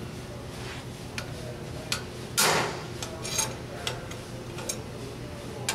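Metal tools knocking and clinking on a rusted exhaust flange joint as a ball-peen hammer and pry tool work the seized joint apart, a handful of light taps with one louder ringing clank about two and a half seconds in.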